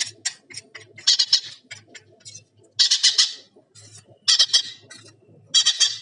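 Parrot chick's begging calls: four short, high, noisy calls about a second apart, over light clicking of a metal spoon stirring hand-feeding formula in a steel bowl.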